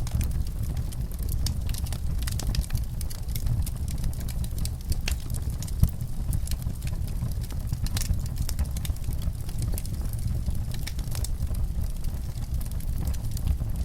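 Fire in a fireplace crackling: many small sharp pops and snaps over a low, steady rumble, with one louder pop about six seconds in.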